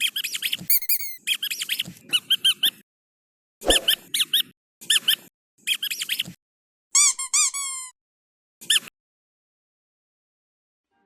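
Squeaky dog toy squeezed in a series of short bursts of quick, high-pitched squeaks, a few sliding in pitch, stopping about nine seconds in.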